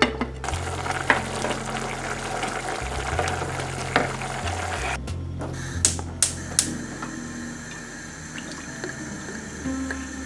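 A pot of legumes on the boil with its steel lid on, bubbling with an even hiss for about five seconds. After a break, three sharp clicks come about half a second apart, typical of a gas hob's igniter being used to light the burner under the pan. Background music plays throughout.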